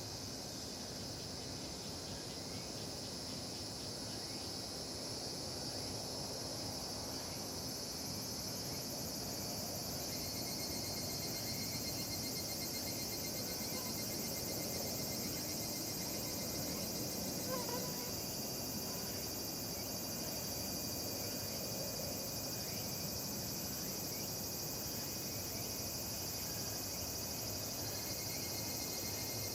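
Chorus of higurashi (evening cicadas) and other cicadas, a dense, steady high-pitched shrilling throughout. About seventeen seconds in, a mosquito's whine passes briefly close to the microphone.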